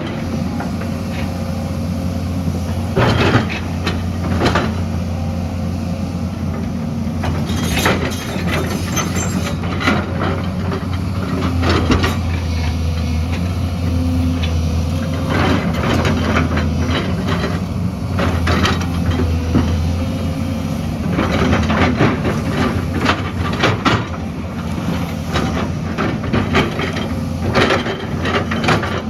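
Heavy earthmoving machine's engine running steadily, with sharp clanks and knocks every few seconds from the bucket working among stones.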